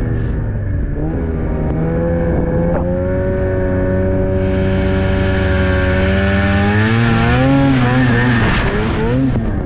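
Snowmobile engine running steadily under way, its pitch shifting briefly near the end. A rushing hiss joins in about four seconds in.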